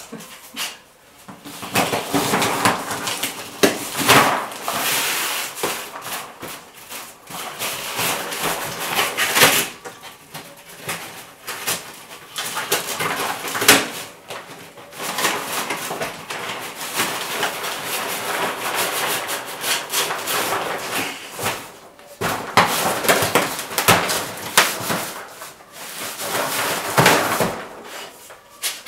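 A bull terrier tearing wrapping paper off a gift box with its teeth and paws: continuous rustling and crinkling of paper, broken by sharper rips every few seconds and a brief lull about two-thirds of the way in.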